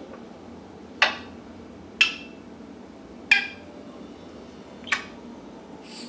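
African grey parrot making four sharp, clinking clicks, spaced a second or so apart.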